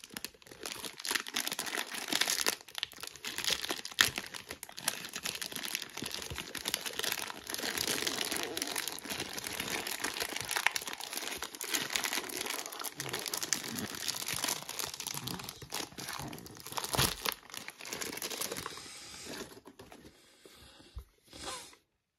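Clear plastic bag crinkling and rustling as hands work an electronic blood pressure monitor out of it: a dense run of crackles with sharp snaps here and there. It dies down about three quarters of the way through.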